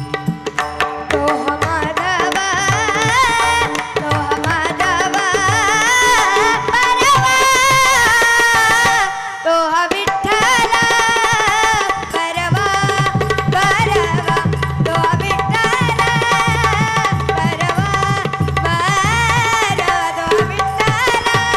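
Bhajan music: tabla playing a rhythm under a wavering, ornamented melody line. About ten seconds in the drums drop away briefly, then return with heavier bass strokes.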